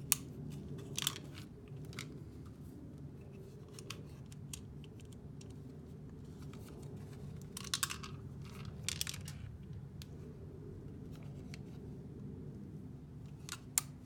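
Hard plastic holster and tourniquet pouch parts being handled and fitted together, with scattered light clicks and knocks and a few short scraping rasps, about a second in and again around two-thirds of the way through, over a steady low hum.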